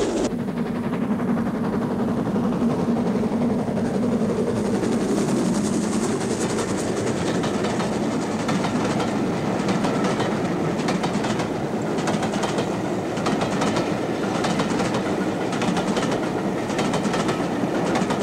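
Steam train running along the track: a steady rumble with the wheels clicking over the rail joints.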